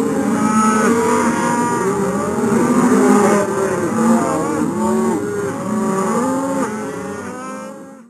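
A herd of dairy cattle mooing, many calls overlapping one another continuously. The mooing fades over the last second and cuts off suddenly.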